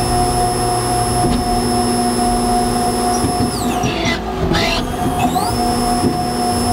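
CNC machine turning steel: a steady high whine over a busy mechanical rumble. A little past halfway the whine glides down, then climbs back about a second later.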